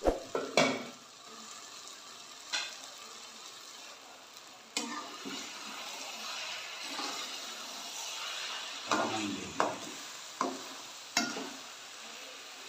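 Cabbage and peas frying on high heat in an aluminium pot with a steady sizzle, while a metal spoon stirs and scrapes through them, knocking against the pot a few times near the start and several times near the end.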